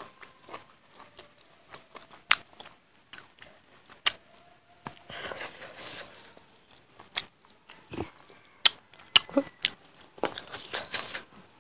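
Close-miked chewing and lip smacks of a person eating rice and chicken curry by hand, with scattered sharp clicks.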